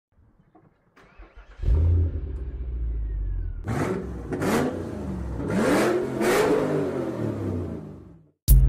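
A Mercedes-Benz 280SE 3.5 Coupe's 3.5-litre V8 starting up about a second and a half in, then revved several times, each blip rising and falling in pitch, before fading out near the end.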